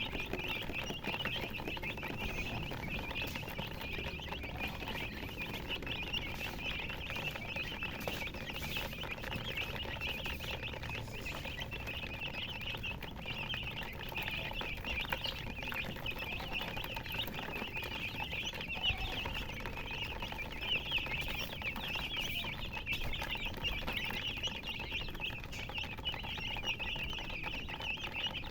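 Many baby chicks chirping continuously, a dense overlapping chorus of short high peeps.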